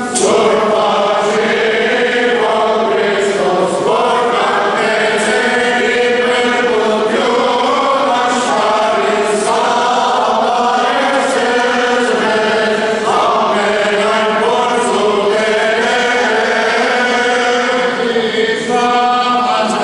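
Church choir chanting an Armenian Church hymn, a slow melody sung without a break.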